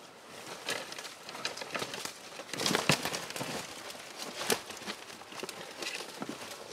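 Dry leaves and sticks rustling and crackling as they are handled and stepped on, in a quick irregular run of small crackles. The crackling grows louder about three seconds in, and there is a sharp snap about halfway through.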